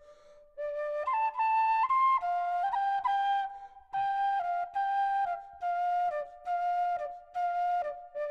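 Background music: a slow melody played one held note at a time in short phrases, starting after a brief pause.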